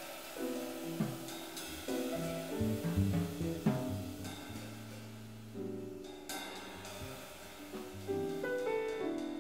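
Piano, bass and drums trio playing a pop tune in jazz style: piano chords and melody notes over walking bass notes, with cymbals and light drums keeping time.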